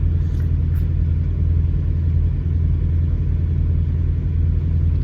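Steady low rumble of a semi-truck's engine idling.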